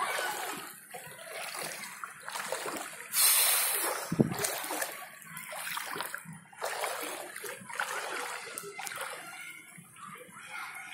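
Floodwater splashing and sloshing in irregular bursts as someone wades through a flooded street, with a louder splash about three seconds in.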